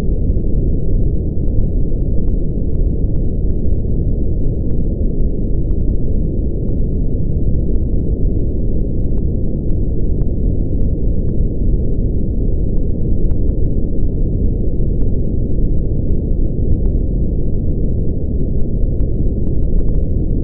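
Brown noise: a steady, deep rumble like a distant waterfall, with all its weight in the low end and nothing above about 1 kHz.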